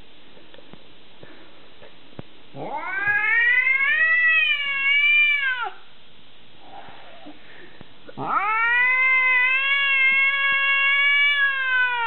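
Long-haired cat yowling at another cat outside: two long caterwauls, the first about three seconds long, the second starting about eight seconds in and still going at the end, each swooping up at the start and sliding down in pitch at the close.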